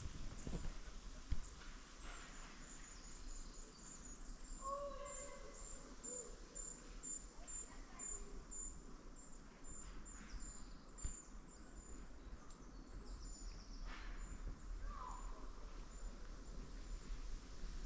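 Faint forest ambience: a thin, high chirp repeating many times a second, with a few short whistled calls and one sharp click about a second in.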